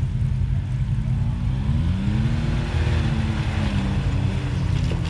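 Side-by-side UTV engine running under load as the machine crawls over rock ledges, its pitch rising about two seconds in and settling back down.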